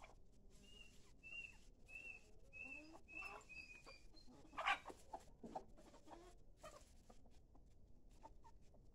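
Hens and roosters clucking softly as they feed on watermelon. A run of short high peeps repeats about twice a second in the first half, and one sharp, brief sound just before the middle is the loudest thing.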